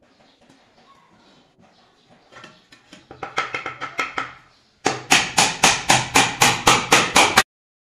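A small hammer driving nails into the edge of plywood panels, joining the top of a shelf box. It starts with light taps and builds to a fast, even run of hard strikes, about four to five a second, which stops abruptly near the end.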